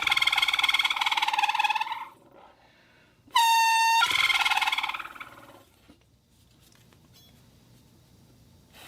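Homemade whistle blown in two blasts. The first is a rough, fluttering tone of about two seconds; after a short gap comes a second blast that starts as a clear steady note and turns rougher as it fades out.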